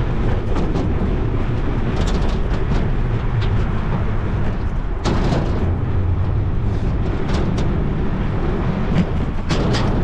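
Wind buffeting an action camera's microphone while cycling, a steady low rumble, with scattered clicks and rattles from the bike as it rolls over a metal-plate bridge deck. The sharpest click comes about five seconds in.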